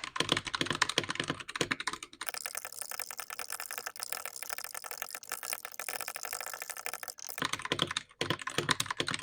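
Fast, continuous typing on a mechanical keyboard fitted with milky yellow switches: a dense run of key clacks, softer from about two seconds in and louder again near the end.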